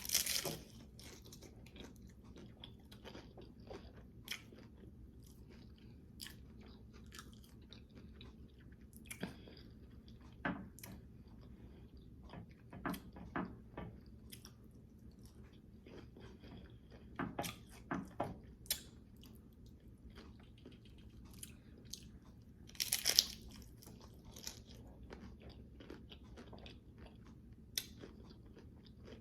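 Close-miked biting and chewing of a crunchy low-carb hard taco shell: scattered crisp crunches, with several louder bursts of bites and the loudest cluster about two-thirds of the way through.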